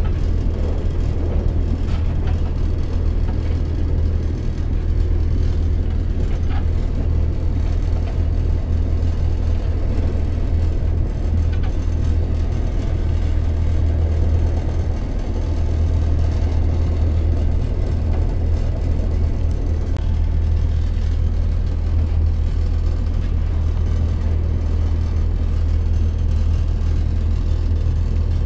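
Inside the carriage of a Class 168 Clubman diesel multiple unit on the move: a steady low drone from the underfloor diesel engine and running gear, with an even rumble over it.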